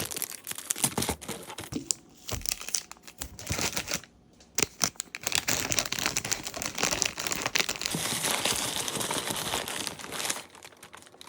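Plastic packaging crinkling as small items are handled and wrapped, with a brief pause about four seconds in and a steadier stretch of crinkling near the end.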